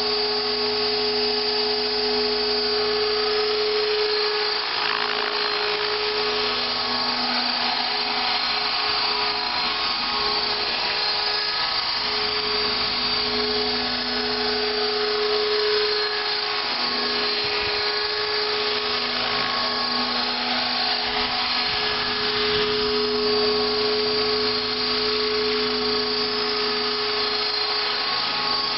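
Electric radio-controlled helicopter (Align T-Rex 600 EP in an MD 500 scale fuselage) in flight: a steady high whine from the electric motor and drive, with rotor hum. Its pitch wavers and dips briefly several times as the speed and load change.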